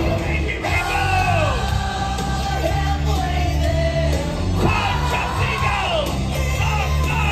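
Loud show music with a heavy, steady bass, with voices singing and yelling over it in swooping lines.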